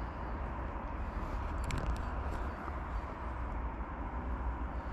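Spinning reel being cranked to retrieve a lure, under a steady low rumble and hiss, with a few faint clicks about one and a half to two seconds in.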